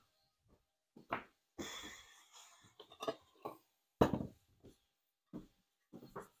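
Kitchen clatter of dishes and utensils being handled and put away: scattered knocks and clinks with quiet gaps between them, the loudest knock about four seconds in.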